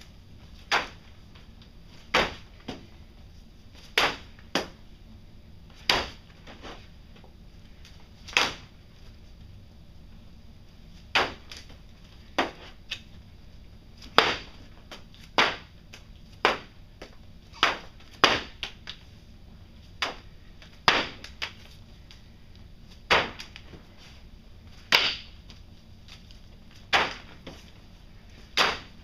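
An object repeatedly thrown against a charcoal-smudged paper surface: sharp impacts at uneven intervals, about one a second, some followed closely by a smaller second hit.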